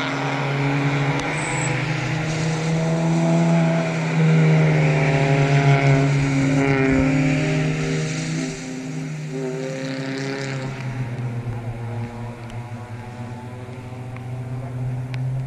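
Engines of small club race cars passing, a mix of Spec Miatas and B-Spec hatchbacks. The sound builds to its loudest in the middle and then fades away, with a lower engine note continuing underneath.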